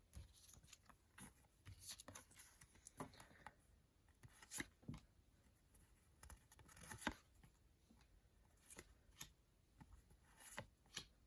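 Faint, irregular rustles and light clicks of paper stickers and trading cards being handled and sorted by hand.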